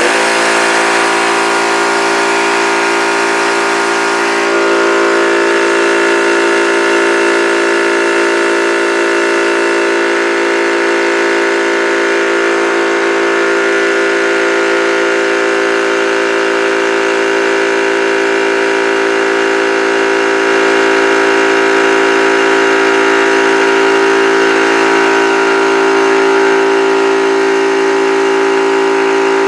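Yong Heng portable high-pressure air compressor running loud and steady, filling an empty PCP air rifle from zero pressure; its tone shifts slightly about four seconds in.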